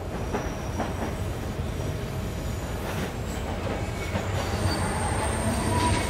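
Train running on rails: a steady rumble with a few clicks, then thin high wheel squeals from about three-quarters of the way in, slowly getting louder.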